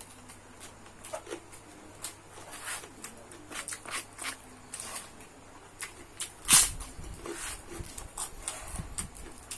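A person eating fried rice close to the microphone: scattered short smacking and clicking chewing sounds, with one louder sharp knock about six and a half seconds in.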